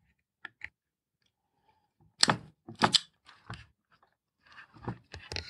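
Hand tools cutting and stripping a plastic-sheathed power cable: two small clicks, then from about two seconds in a few crisp crunching snips through the insulation, followed by wire-handling noise.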